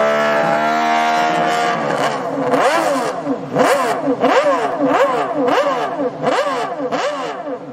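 Motorcycle engine held at high, steady revs, then blipped repeatedly, the revs rising and falling sharply about twice a second.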